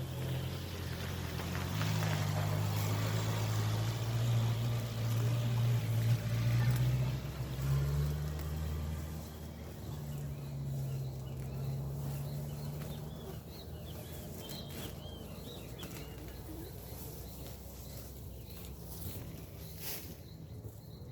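A low engine hum, steady with a few shifts in pitch, that fades away about two-thirds of the way through. Birds chirp briefly afterwards.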